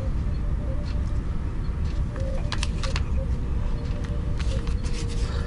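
Steady low background rumble with a few light clicks and taps from small plastic parts and a circuit board being handled and held in place, in two small clusters: about halfway through and near the end.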